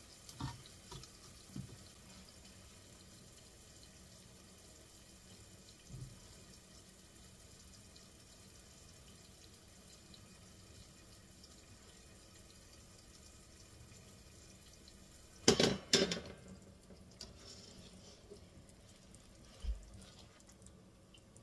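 Kitchen work sounds over a faint steady background: a few light knocks, then a brief loud clatter about fifteen seconds in and a single dull thump a few seconds later.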